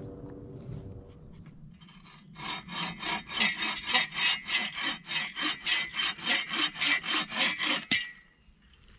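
Hand bow saw cutting through a thin wooden branch in rapid, even strokes, about four a second. The sawing starts about two seconds in and stops suddenly near the end as the cut finishes.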